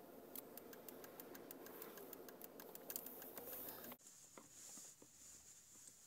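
Faint irregular ticking, several ticks a second, over a low steady rumble, as snow hits the windshield of a moving car. It cuts off abruptly about four seconds in, leaving only a faint steady hiss.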